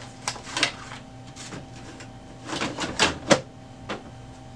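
A stack of printer paper rustling as it slides into the paper tray of an HP OfficeJet Pro 9018e, with several plastic clicks and knocks from the tray, the sharpest about three seconds in.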